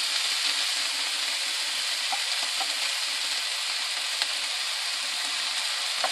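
Chicken pieces and minced garlic sizzling steadily in hot olive oil in a nonstick frying pan, with a single light click about four seconds in.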